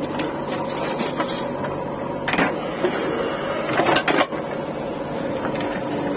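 JCB 4DX backhoe loader's diesel engine running steadily under work with a constant hum. There are a couple of short, louder scrapes as the backhoe bucket digs into the dirt, about two and a half and four seconds in.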